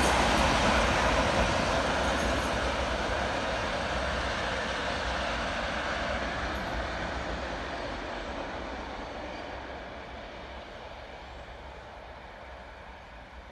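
Class 37 diesel locomotives, English Electric V12 engines, hauling a test train away into the distance: the noise of the engines and wheels on the rails fades steadily until it is faint near the end.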